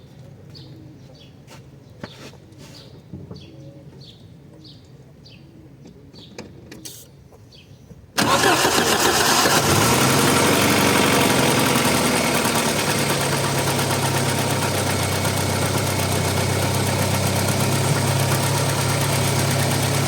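Audi 80 B4's 2-litre mono-injection four-cylinder engine cold-started about eight seconds in: it fires suddenly, its revs rise briefly, then it settles into a steady idle.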